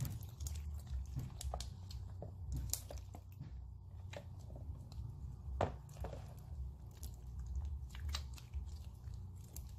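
Sticky slime squeezed and stretched by hand, making irregular wet squelches with small sticky clicks and pops as it pulls off the fingers.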